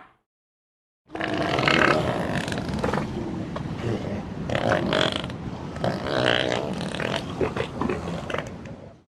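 Elephant making low, rough rumbling and grunting sounds with repeated louder pulses, starting about a second in and cutting off just before the end.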